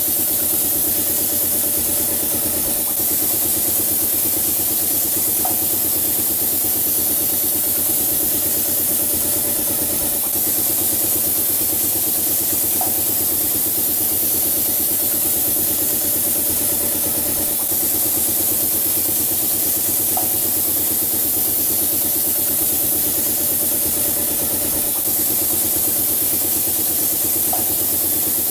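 Steady mechanical hum of a running machine, with a faint tick about every seven seconds.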